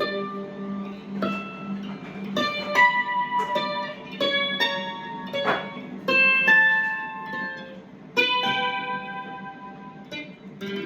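Loar 310 electric mandolin playing a blues in G: separate plucked notes and short runs, each ringing on, over a steady low sustained tone.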